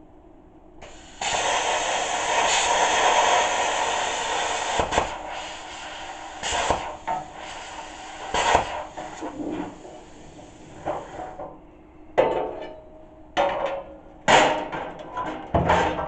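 Plasma cutter cutting sheet steel: a steady, loud hiss of the arc and air starting about a second in and lasting about ten seconds, with crackles. It is followed by several short bursts as the torch is fired again in brief cuts.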